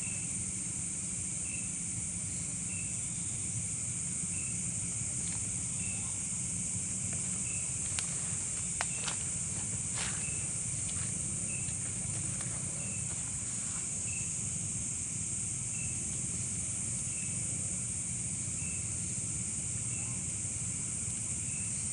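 A steady high insect chorus with one short chirp repeating about once every second and a bit, over a low steady rumble. A few sharp clicks come about halfway through.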